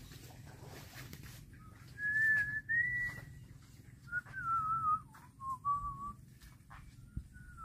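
A person whistling a wavering tune in several short phrases of held notes, starting about two seconds in, over a low steady rumble.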